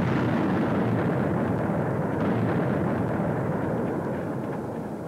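Rumble of a blasting charge going off, a dense low roar of the explosion and its echo that holds steady, then fades slowly from about four seconds in.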